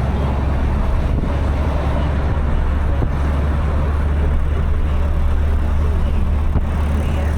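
Motor vehicle traffic: a steady, loud low rumble of engine and road noise that does not let up.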